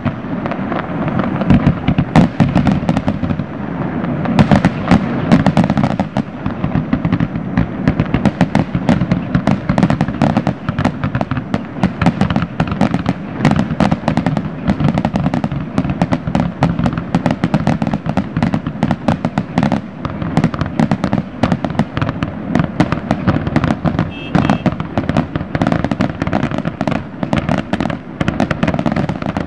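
Aerial fireworks shells bursting in rapid succession: a dense, continuous barrage of booms and crackling.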